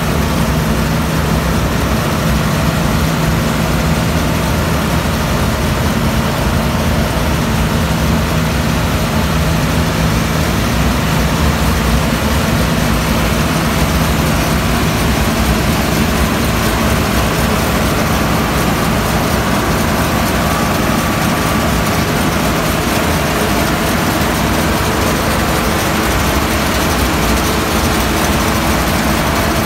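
New Holland TC5.30 combine harvester running steadily on a test run after repair, its engine and machinery holding one even speed with a steady low hum. A faint higher whine rises briefly about two-thirds of the way in.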